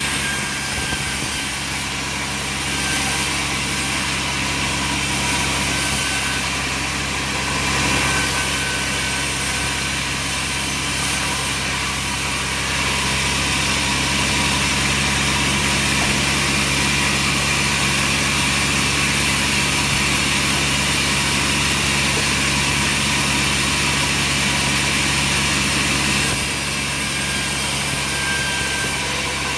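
Sawmill machinery running steadily: a motor hum with a broad hiss over it. The noise grows louder about twelve seconds in and eases back shortly before the end.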